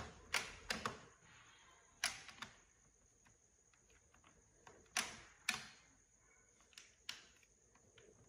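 A string of sharp clicks and light knocks from hands handling a plastic rice cooker and its inner pot, several coming in pairs about half a second apart, with quiet stretches between.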